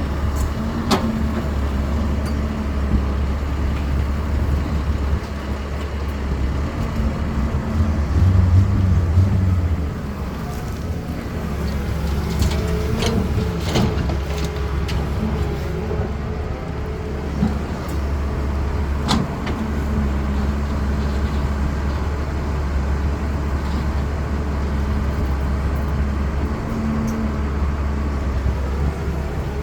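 Cat 320D excavator's C6.4 diesel engine running steadily under work, with a low drone that grows louder and slightly higher for about two seconds near the eight-second mark. A few sharp knocks and clanks come through here and there.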